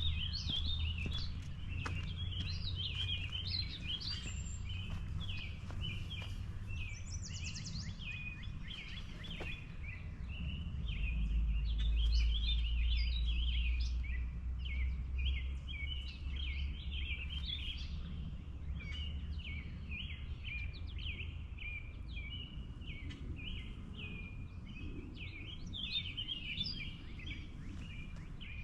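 Dense chorus of many small birds chirping and calling, short high notes overlapping without a break, over a steady low rumble that grows louder for a few seconds near the middle.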